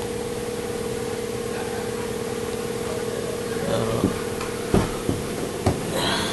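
A small motor hums at a steady pitch throughout. Several sharp knocks come in the last two seconds.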